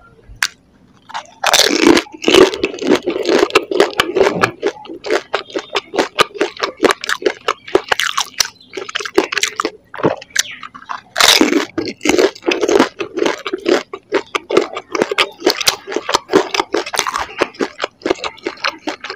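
Crisp fried golgappa (panipuri) shells being bitten and chewed close to the microphone: dense, irregular crunching. The loudest crunches come about a second and a half in and again about eleven seconds in, as a fresh puri is bitten.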